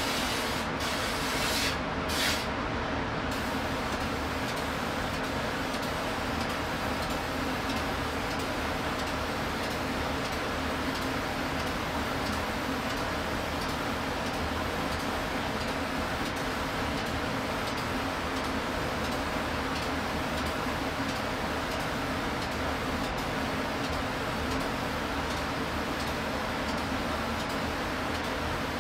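A steady hum with a hiss over it, like a machine or fan running. In the first two seconds or so there are two short, sharp hisses.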